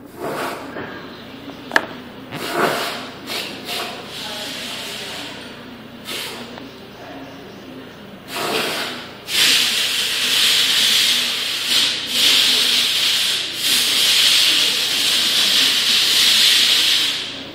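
Handling noise as hands fit wiring and plastic parts into a power tool's handle and motor housing: rustling, rubbing and small knocks. Just over halfway in, a loud, steady hiss-like rubbing begins and runs until shortly before the end, with a few brief breaks.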